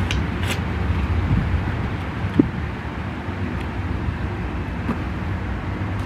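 A steady low rumble and hum, with a few small clicks of a spoon on a plastic yogurt cup.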